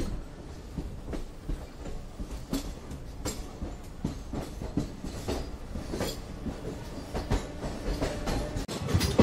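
Passenger train coaches running on the rails, heard from an open coach door: a steady low rumble with irregular sharp wheel clacks over the track.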